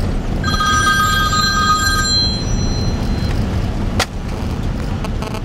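Steady road and engine rumble inside a vehicle's cabin driving on a dirt road. A steady electronic ringing tone of several pitches sounds for about two seconds near the start, and there is a sharp click about four seconds in.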